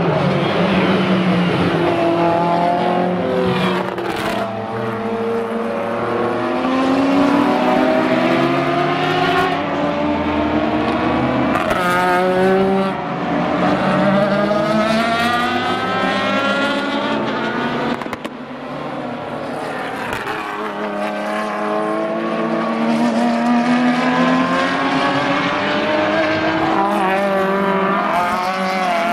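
Racing car engines running hard as cars pass one after another, each climbing in pitch as it accelerates, then dropping at the gear changes.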